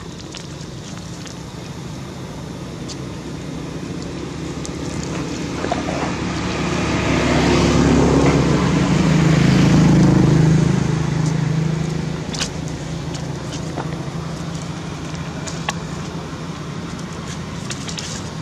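A motor vehicle passes by, its engine hum swelling over several seconds and then fading away, over steady outdoor background noise with a few faint clicks.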